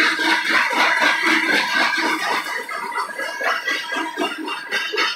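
Freight cars of a passing train rolling by: steady, high squealing tones from the wheels over a choppy rattle and clatter of the cars.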